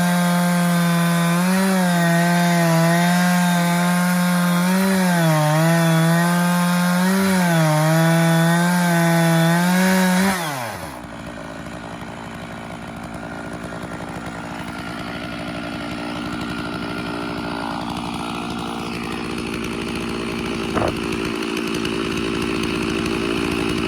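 Stihl 660 Magnum two-stroke chainsaw on an Alaskan chainsaw mill running at high revs as it rips lengthwise through a log, the pitch wavering under load. About ten seconds in, the throttle is let off and the engine drops to a lower idle.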